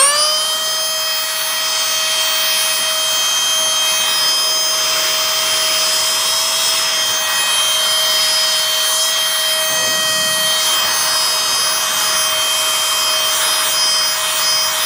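Canless Air O2 Hurricane cordless electric air duster running at full power: its motor spins up at the start, then holds a loud, steady high whine over a rush of blown air.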